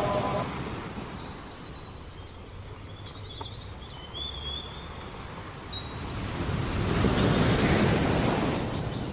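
Ocean surf washing on a shore, with a wave swelling up and breaking from about six seconds in, and a few faint bird calls above it. A chanted note fades out right at the start.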